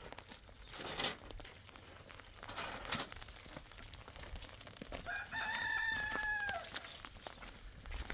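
A rooster crowing once, about five seconds in: one long call that drops in pitch at its end. Two short rustling noises come before it.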